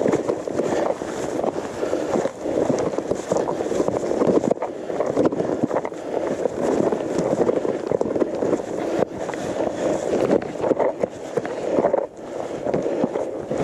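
Gravel bike tyres rolling over loose gravel and fallen leaves, a continuous dense crunching and crackling, with wind buffeting the microphone.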